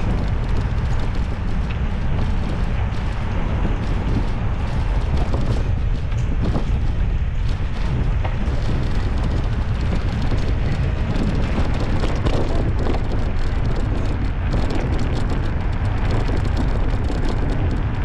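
Wind rushing over the camera microphone while riding a bicycle at speed: a steady, loud low rumble that does not let up.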